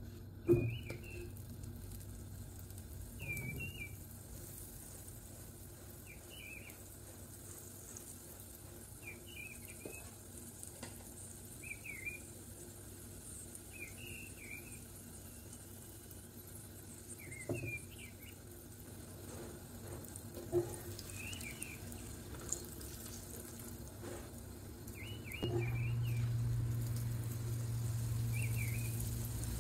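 Paratha sizzling faintly on a hot tawa, with a sharp clack of the spatula about half a second in as it is flipped. Through it, a bird repeats a short chirp about every two and a half seconds, and a low hum comes in near the end.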